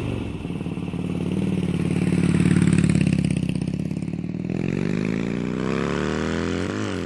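Motorcycle engine running, growing louder toward the middle, then revving with a rising pitch over the last couple of seconds.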